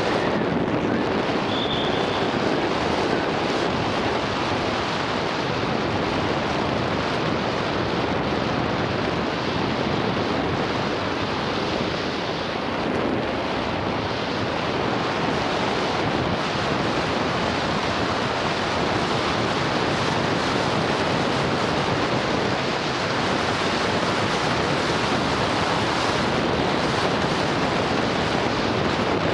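Steady rush of wind over an action camera's microphone as a mountain bike descends at racing speed, with the bike's own rolling noise mixed in. A brief high squeak sounds about two seconds in.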